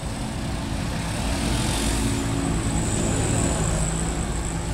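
Road traffic with a vehicle engine running close by, growing somewhat louder through the middle and easing off near the end.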